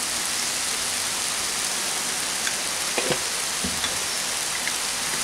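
Grated raw papaya and rice frying in oil in a nonstick pan: a steady sizzle, with a couple of faint taps about three seconds in.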